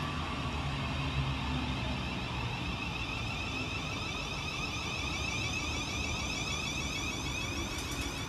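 Thameslink Class 700 electric multiple unit moving at low speed through the station. A steady rumble of the train is joined by a high electric whine from its traction equipment, which grows clearer from about two seconds in.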